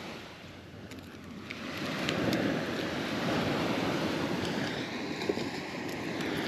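Surf washing onto the beach, swelling louder about two seconds in, with wind on the microphone and a few faint clicks.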